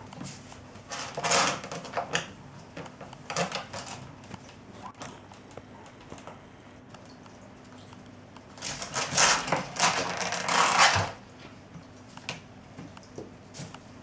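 Cats scrabbling at a plant pot and on a wooden floor: bursts of claws scratching and paws tapping, the longest and loudest lasting about two seconds later on.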